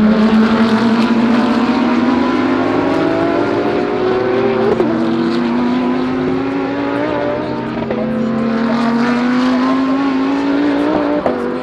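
GT3 race car engine accelerating hard, its pitch climbing steadily and dropping sharply at three upshifts, about five, eight and eleven seconds in.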